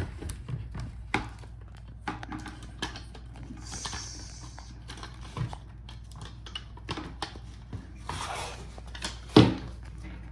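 Small clicks, taps and brief rubbing from plastic laptop parts being handled and pried, with one louder knock about nine seconds in.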